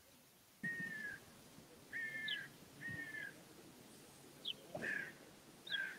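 Bird calling: five short, slightly falling calls about a second apart, with a few brief higher chirps between them.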